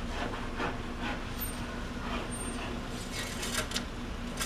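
Ford 5.8 L (351) V8 running steadily at idle, with a light tick about twice a second and a few metallic clinks about three seconds in.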